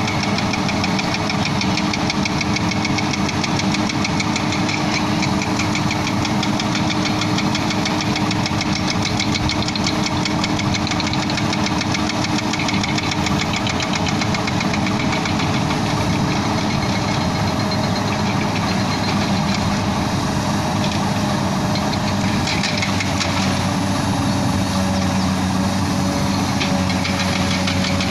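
Diesel engine of a Komatsu 200-class hydraulic excavator running steadily while it lifts a heavy concrete box culvert, with a truck's diesel idling alongside.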